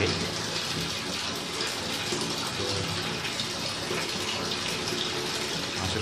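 Water pouring steadily out of an electric geyser's drain opening as the tank drains.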